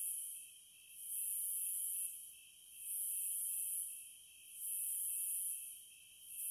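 Cicadas buzzing in a high-pitched chorus that swells and fades in regular pulses, each about a second long and repeating roughly every second and three-quarters, over a fainter steady drone.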